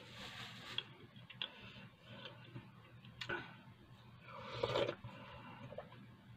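A person sipping hot tea from a glass mug, one audible slurp a little after halfway, preceded by a few light clicks.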